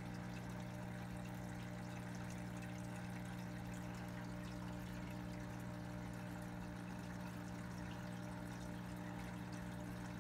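Aquarium filter running: a steady trickle of falling water over a constant low hum.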